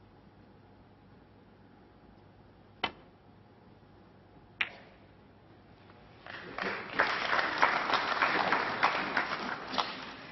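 Snooker cue tip striking the cue ball with a sharp click, then a second click about two seconds later as the cue ball hits another ball. From about six seconds in, the audience applauds for around four seconds.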